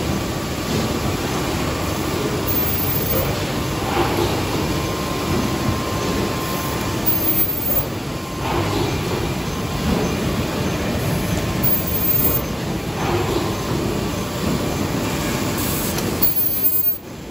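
Automatic rigid box making machine running: a steady mechanical clatter with a heavier stroke recurring every few seconds.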